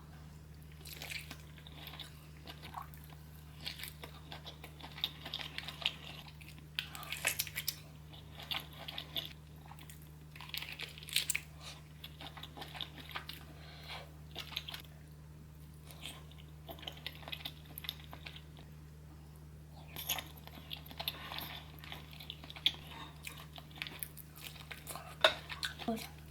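Close-miked eating sounds: chewing, biting and crunching, in irregular crackly clicks with a short lull about two-thirds of the way through. A steady low electrical hum sits underneath.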